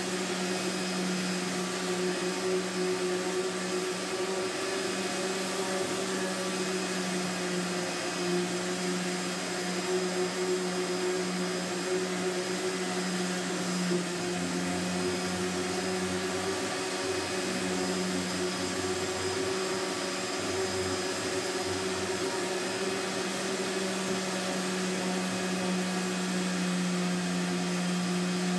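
A wet/dry shop vacuum running steadily, its motor making an even hum and whoosh of air. A lower hum joins in from about halfway through and drops out again a few seconds later.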